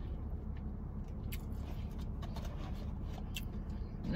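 Steady low hum inside a parked car, with a few faint, sharp clicks.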